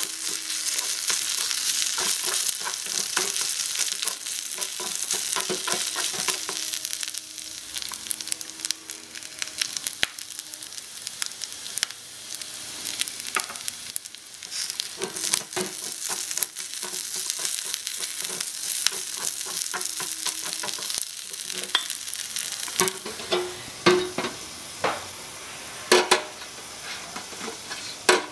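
Pork and kimchi sizzling in a miniature aluminium wok, stirred with a tiny wooden spatula that clicks and scrapes against the metal. Near the end come a few sharp knocks as a tiny copper frying pan is set on the stove.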